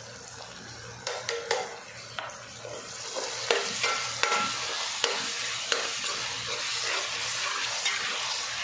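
Onion-tomato masala with freshly added ginger-garlic paste sizzling in a metal pot while a steel spoon stirs and scrapes through it. The sizzling grows louder about three seconds in, with scattered clicks and scrapes of the spoon against the pot.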